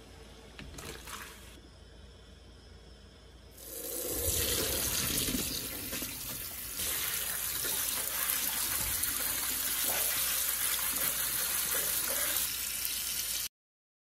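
A pot of water at the boil bubbling faintly, then from about four seconds in a kitchen tap runs hard onto blanched calamari rings in a colander, cooling them. The running water cuts off suddenly near the end.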